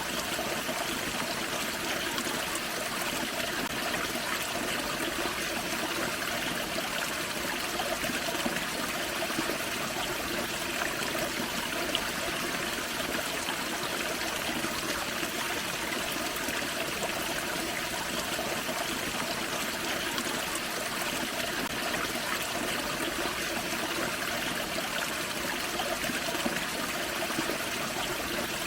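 Small waterfall on a forest creek: water splashing and trickling in a steady, unbroken rush.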